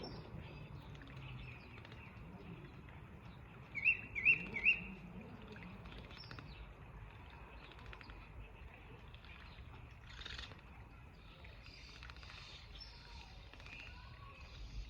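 A songbird giving three quick rising chirps about four seconds in, with fainter bird calls scattered through the rest.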